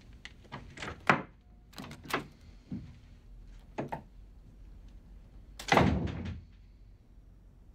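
A few short clicks and knocks of steps and the door handle, then a wooden door shutting with a heavy thud about six seconds in.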